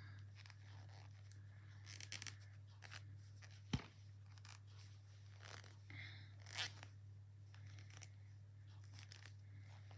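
Faint handling sounds of hand knitting: knitting needles clicking and yarn rustling, with one sharper needle click a little under four seconds in, over a steady low hum.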